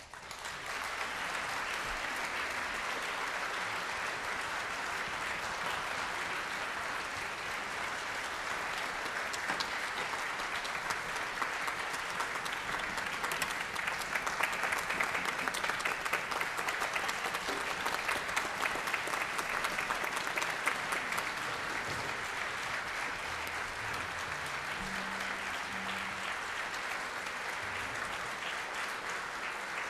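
Concert audience applauding: many hands clapping together, starting abruptly and then holding steady.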